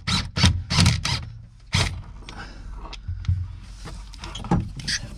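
Ratchet wrench with a 13 mm socket working the top bolt of a gas cylinder out in short strokes, about three a second for the first two seconds, then a few scattered metal knocks.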